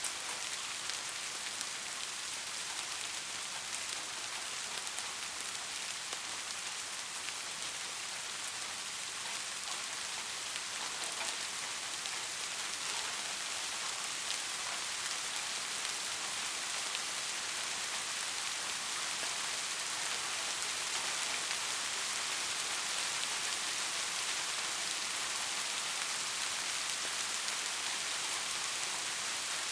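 Steady rain falling on a surface, a constant even hiss of many fine drops.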